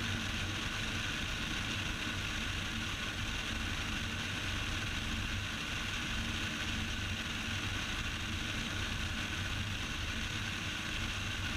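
Cessna 172's four-cylinder piston engine and propeller running steadily in flight, an even drone heard inside the cabin.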